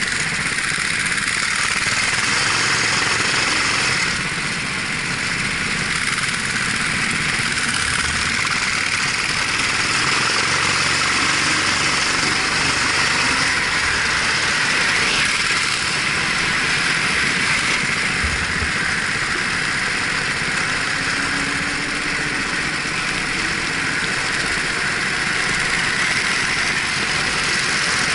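Racing kart engine running steadily under way, heard from the driver's helmet.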